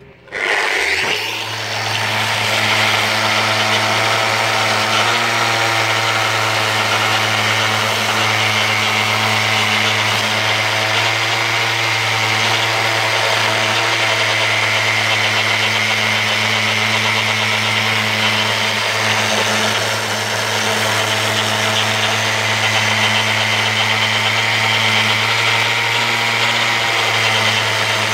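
Festool Rotex sander comes up to speed in the first second, then runs steadily with a hum and a high whine. Its spinning pad rasps the paint off a wooden post.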